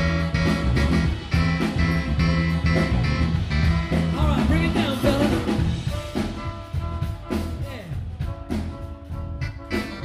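Live band playing: electric stage keyboard, electric guitar and drum kit over a steady beat, with a wavering lead line around the middle.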